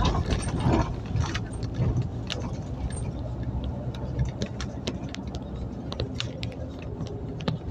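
Scania Omnicity city bus driving, heard from inside the passenger cabin: a steady low rumble of engine and road, with frequent small clicks and rattles throughout.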